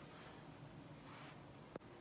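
Near silence: faint room tone, with one brief click about three-quarters of the way through.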